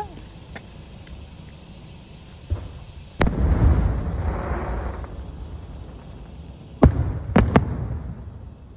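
Aerial fireworks exploding: a loud bang about three seconds in, trailing off over about two seconds, then three sharp bangs in quick succession near the end.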